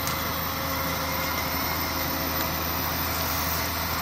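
Diesel engine of a tracked snow groomer (snowcat) running steadily as it drives past across the snow, a continuous low hum.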